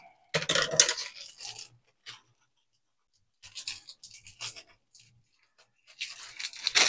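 Croutons being crushed by hand inside a plastic bag, making crunching and plastic crinkling in three bouts with short pauses between.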